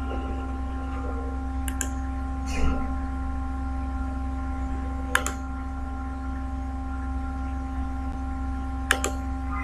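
A steady electrical hum with several fixed tones, the hiss and buzz of the recording microphone, with a few sharp mouse clicks: one a couple of seconds in, one in the middle, and a quick pair near the end.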